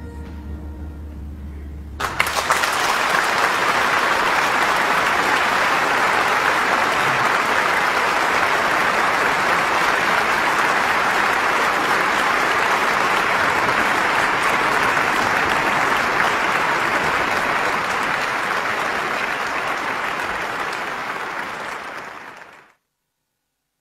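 A xiao, the Chinese end-blown bamboo flute, fades out on a last held note. About two seconds in, a concert-hall audience breaks into applause, which runs steady and then cuts off abruptly near the end.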